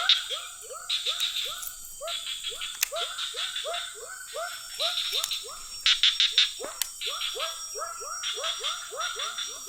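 A small animal calling over and over: short, downward-sliding cries, about three a second, mixed with bursts of higher, faster chattering.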